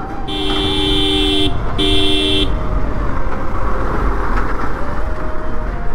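A vehicle horn honks twice, a blast of about a second followed by a shorter one, over steady road and engine noise.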